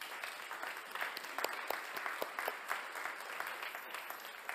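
Conference audience applauding: many hands clapping steadily.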